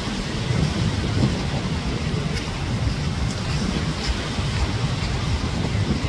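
Surf breaking and washing in over a sandy shore, with wind buffeting the microphone in a steady low rumble.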